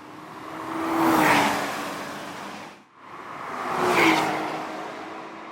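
Porsche Cayman 987.2's flat-six exhaust driving past twice. Each pass swells to a peak and fades away, with a slight drop in pitch as the car goes by. The two passes are cut sharply apart about halfway through.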